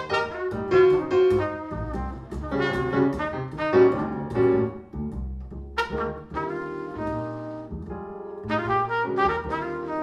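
A small-group jazz recording plays back through Q Acoustics 3020 bookshelf speakers: a trumpet plays quick runs of short notes over upright bass and piano.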